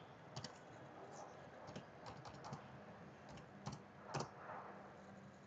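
Computer keyboard keys tapped one at a time as a number is typed in: faint, irregularly spaced clicks, the loudest a little after 4 seconds in.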